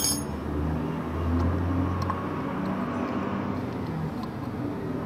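Low, steady engine rumble of a motor vehicle running nearby, swelling a little between one and two seconds in and then easing.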